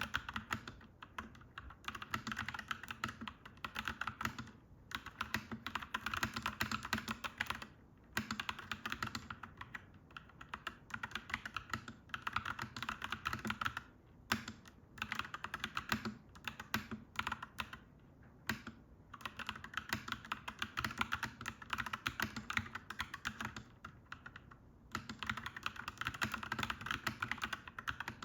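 Clacky mechanical keyboard being typed on in quick, continuous runs of keystrokes, broken by a few short pauses.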